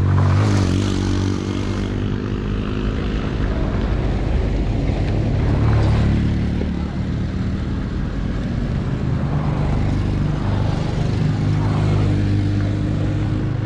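Motor vehicle engine running steadily on a rough road, with a brief rush of noise in the first couple of seconds.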